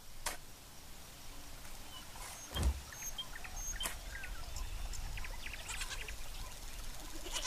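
Birds chirping in short high calls and small gliding notes over a steady low rumble. A few sharp clicks are scattered through, one with a dull thump about two and a half seconds in.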